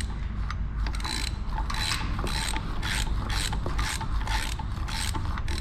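Ratchet wrench clicking in repeated strokes, about two a second, as it turns the Yamaha FZ 2.0 engine's crankshaft by hand from the magneto side, rotating the piston through the newly fitted cylinder to check that it moves freely.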